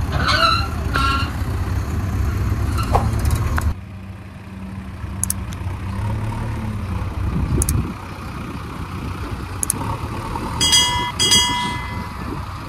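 Diesel engine of a JCB 3DX backhoe loader running, with a tractor engine alongside in the first few seconds. The sound drops suddenly about four seconds in. Two short high beeps sound near the end.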